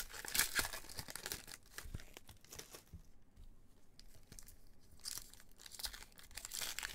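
Foil trading-card pack being carefully torn open by hand, crinkling and tearing in spurts, with a quieter pause in the middle.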